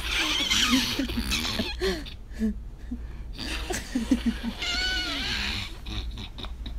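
Young women laughing and giggling, with a high-pitched squeal about five seconds in.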